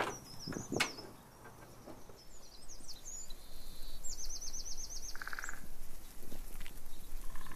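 Small birds chirping outdoors, with a quick trill of about nine notes around four seconds in. Two sharp knocks come near the start, and a brief buzz a little past five seconds.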